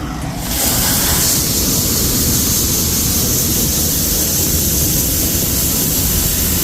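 John Deere 5075E tractor driving under way, its diesel engine giving a steady low rumble. A loud, steady hiss sets in about half a second in and covers the engine.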